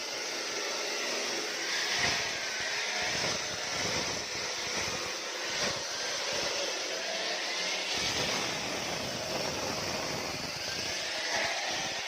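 Diamond-blade concrete saw cutting a reinforced concrete slab: a steady grinding whine whose pitch wavers up and down.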